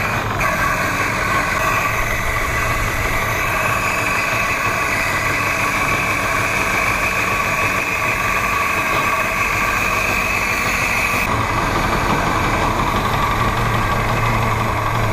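Ford GPW jeep's four-cylinder flathead engine idling steadily on its first start-up. A higher hiss drops away about eleven seconds in while the engine runs on.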